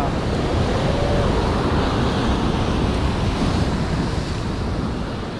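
Rough surf breaking on the shore, with wind buffeting the microphone: a loud, steady rushing noise, heaviest in the low end, easing slightly toward the end.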